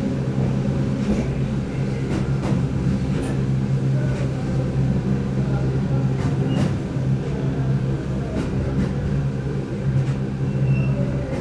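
Running noise of a Keihan 8000 series electric train heard on board: a steady low hum with scattered clicks from the wheels on the track.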